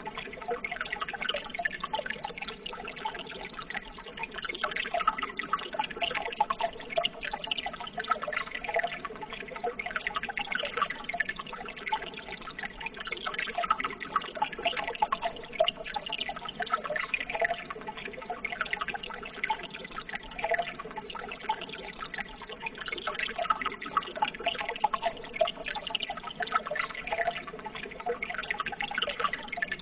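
Running water trickling and splashing steadily, an even stream of small splashes and drips.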